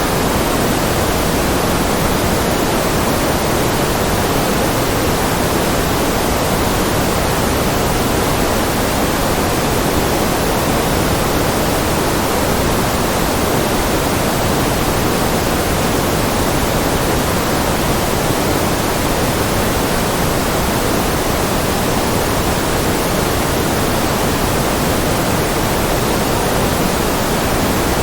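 Steady, unchanging noise track for focus, a constant rushing hiss. It is fuller and deeper than a thin bright hiss, with no changes or events.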